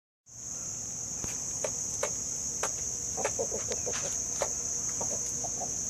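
Insects trilling steadily in one high pitch, with a few sharp taps scattered through and a quick run of soft low clucks from a chicken a little past the middle.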